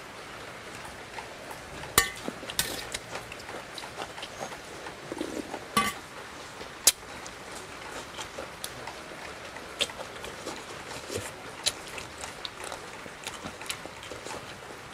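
Close-up eating sounds: chewing and mouth noises while frog stew is eaten by hand, with several sharp clicks against the steel serving tray.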